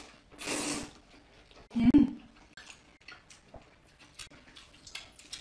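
Noodles slurped in two short hissy sucks, then wet chewing with many small mouth clicks and smacks, and one louder short mouth sound about two seconds in.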